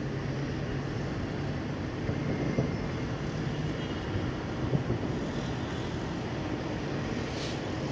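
Distant fireworks display rumbling steadily across a city, with a couple of faint thuds about two and a half and four and a half seconds in.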